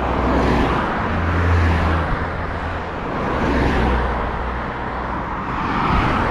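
Traffic on a busy main road: several cars passing close by one after another, the tyre and engine noise swelling and fading with each one.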